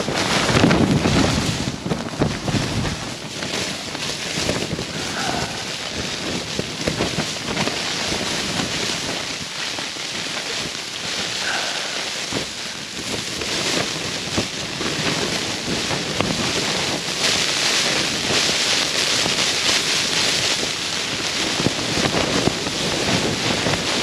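Storm-force gusting wind buffeting a small tent, the fabric flapping and rattling without pause, with heavy wind noise on the microphone.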